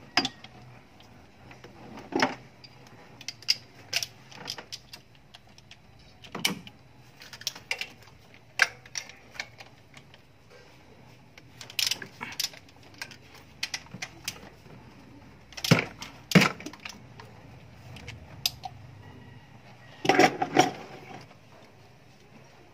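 Ratchet wrench and metal hand tools clicking and clinking against the engine's fittings in short, irregular bursts as bolts are undone to remove the fuel injectors.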